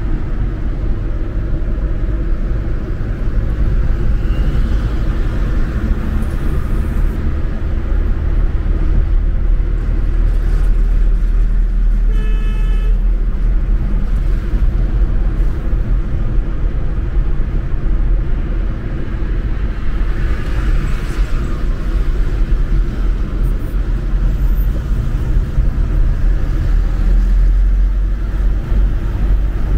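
Car driving in city traffic, heard from inside the cabin: a steady low rumble of engine and road noise. A car horn gives one short toot about twelve seconds in.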